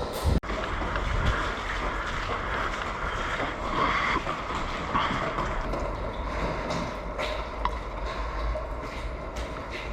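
Steady rustling and low rumbling from a head-mounted camera's microphone as an airsoft player moves, with a few faint clicks.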